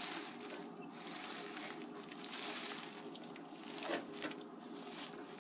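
Faint, soft squishing of hands kneading a raw ground beef meatball mixture in a glass bowl.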